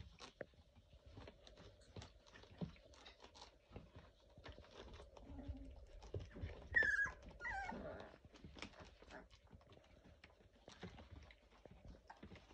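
Young Labrador puppies shuffling and scrabbling on a padded mat, a run of small clicks and rustles. About seven seconds in, a puppy gives two short high whines, each falling in pitch.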